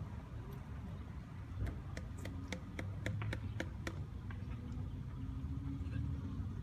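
Steady low rumble of outdoor traffic, with a quick, uneven run of about a dozen sharp clicks between about one and a half and four seconds in. After the clicks, a faint steady low engine hum comes in.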